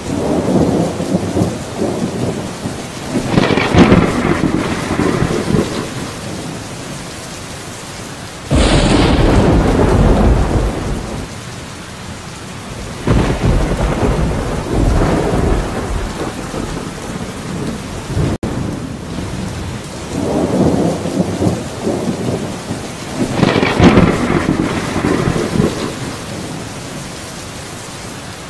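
Steady heavy rain with thunder rumbling over it again and again; a sudden loud thunderclap breaks in about a third of the way through.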